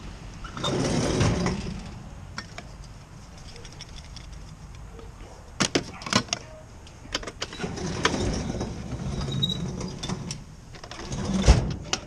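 Parts and supplies being rummaged through in a pickup truck's pull-out bed drawer: spray cans, bottles and boxes clatter and rustle, with a louder scrape about a second in, a few sharp clicks and knocks about halfway, and a solid knock near the end.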